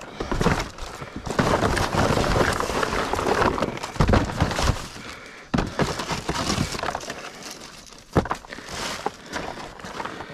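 Hands rummaging through trash in a dumpster: continuous rustling and crinkling of boxes and debris, with a few sharp clinks and knocks as items are moved, clearest about four, five and a half and eight seconds in.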